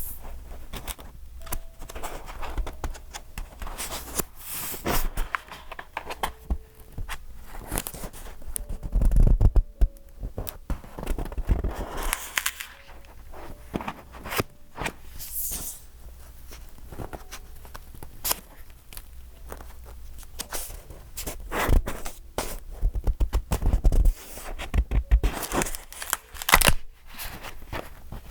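Pages of a filled A5 vintage-style decorated journal being turned and handled: stiff, layered paper rustling and crackling, with a few heavier soft thumps as pages fall and the notebook is shifted.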